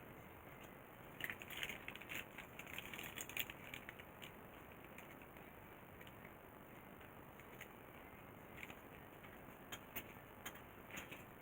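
Faint ratcheting clicks and scratchy rattling of a screwdriver working small screws on a circuit board, bunched between about one and three and a half seconds in, then a few scattered clicks near the end.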